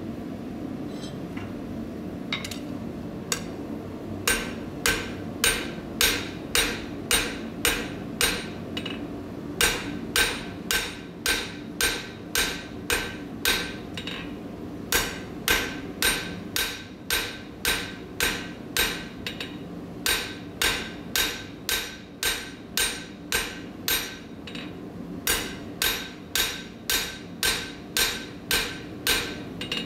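Flat face of a cross-peen hammer striking a hot half-inch square steel bar on the anvil face, each blow ringing brightly. Even blows about two a second, in runs of several with short pauses, begin a few seconds in: the cleanup stage of forging a taper. A steady low rumble runs underneath.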